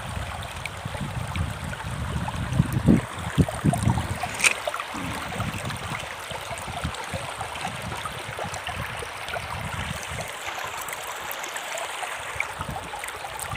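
Shallow river water running steadily over and between stones. A few louder low knocks come between about two and a half and four and a half seconds in.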